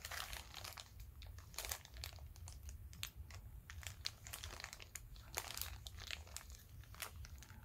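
Small plastic zip bags of screws, nuts and rod ends crinkling as they are picked up and turned over, in short irregular crackles, faint.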